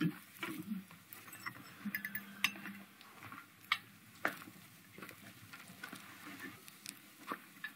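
Cutlery clinking on plates and dishes at a table during a meal: scattered light taps and clinks, faint throughout.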